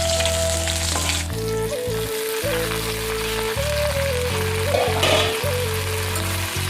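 Background music with a plain melody and bass notes, over the sizzle of taro stems frying in oil. The sizzle is strongest for the first second or so, then carries on more faintly under the music.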